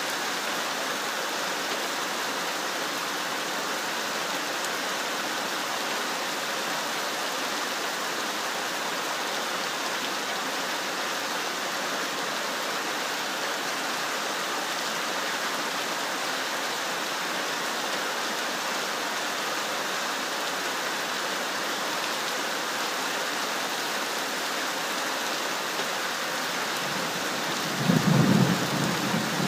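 Steady rain falling, with a low rumble of thunder rising near the end.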